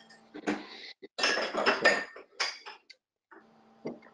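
Dishes and cutlery clinking and clattering in a quick run of knocks, loudest in the first two seconds, over a low steady hum, heard through an open microphone on a video call.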